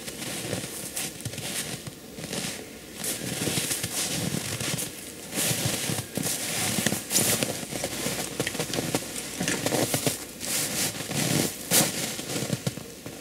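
Irregular crunching and crackling of boots shifting in shallow snow and a jacket rustling as a hunter picks up a shot pine marten and handles it.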